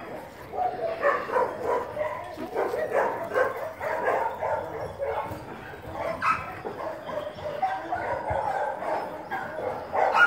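Dog whining and yipping in a continuous run of short, high calls.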